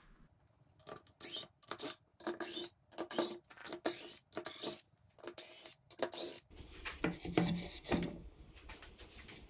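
Cordless drill backing screws out of a plywood top in a quick series of short whirring bursts. Near the end come the rubbing and knocking of the plywood top being lifted off over the mortar tubes.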